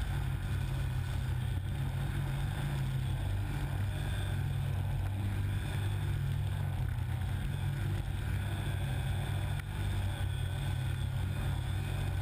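Snowmobile engine running steadily at cruising speed, heard from the rider's seat, with a constant low drone and snow and air rushing past.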